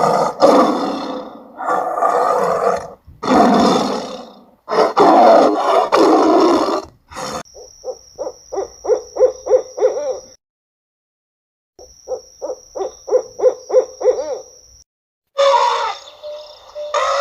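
Animal calls: four long, loud roars over the first seven seconds, then two runs of rapid, evenly spaced low hoots, about four a second, over a steady high-pitched tone, with a short silence between the runs.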